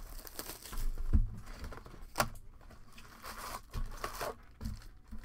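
A sealed baseball-card hobby box being torn open and its foil packs handled: tearing and rustling of wrapping and cardboard, with a few sharp knocks.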